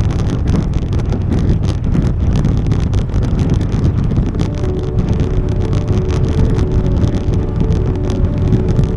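Loud, steady low rumbling noise with constant crackling, and faint background music coming in about halfway through.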